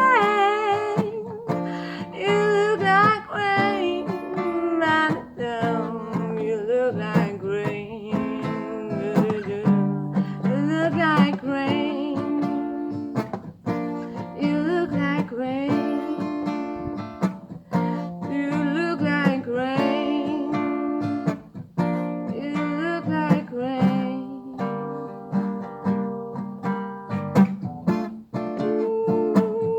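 Acoustic guitar playing, with a voice singing wavering, wordless lines over it.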